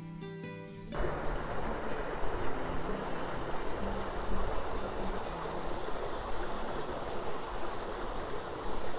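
A small stream of water pouring down a narrow channel in an eroded clay gully, making a steady rushing splash. It starts about a second in, when strummed acoustic guitar music cuts off.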